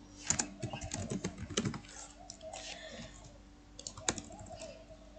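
Computer keyboard typing: a quick run of keystrokes for about two seconds, then a few scattered key presses.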